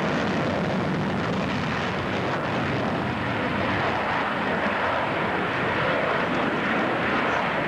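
Jet fighter in flight, its engine noise a steady, dense rush with no break or sudden change.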